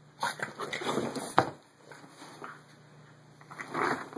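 English bulldog puppy scuffling and rooting around on pillows and carpet: bursts of rustling, with a sharp knock about a second and a half in and another burst of rustling near the end.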